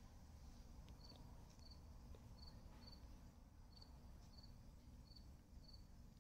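Near silence: room tone, with a faint high-pitched chirp repeating about every two-thirds of a second.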